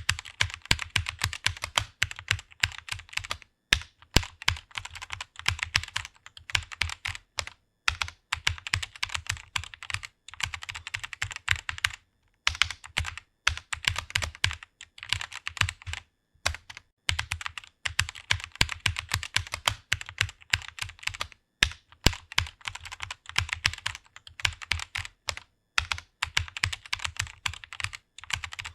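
Fast typing on a computer keyboard: a quick run of keystrokes broken by short pauses every few seconds.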